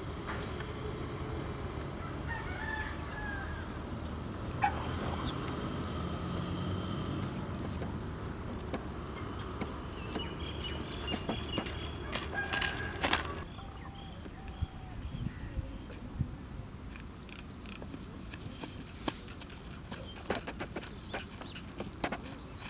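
Open-air countryside ambience: a steady high hiss, with scattered short bird calls in the first half. In the second half come light footsteps and crackling of dry twigs and brush, as someone walks close by.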